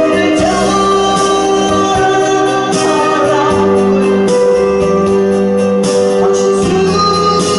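A woman singing a Korean song into a microphone over electronic keyboard backing with a steady bass line, played through amplification.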